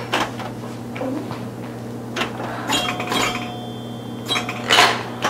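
Plastic clicks and clatter from a Pop the Pig toy. A plastic hamburger is pushed into the pig's mouth and then the pig's head is pressed down, with a few scattered clicks and a louder click near the end.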